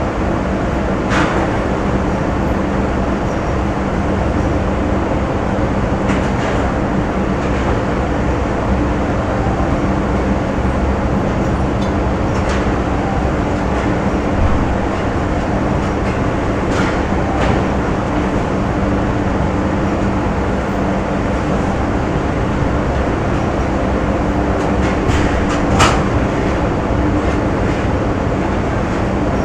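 Factory machinery ambience: a steady, loud mechanical rumble with a constant hum, broken by several sharp metallic clanks, the loudest near the end.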